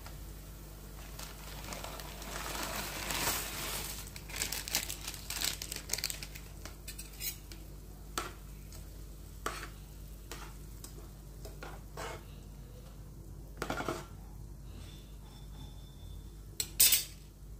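Cooking utensils clinking and knocking against a pan as Maggi noodles are stirred into boiling broth, with a slotted spatula at work. A swell of rustling comes a couple of seconds in, then a run of quick clicks, then single knocks a few seconds apart, and the loudest clatter comes near the end, all over a steady low hum.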